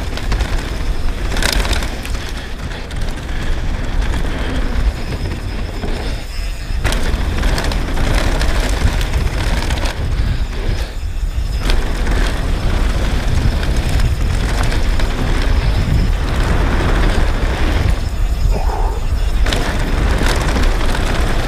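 Downhill mountain bike running fast down a dirt flow trail: a steady heavy wind rumble on the helmet camera's microphone and tyre noise, broken by knocks and rattles from the bike over bumps.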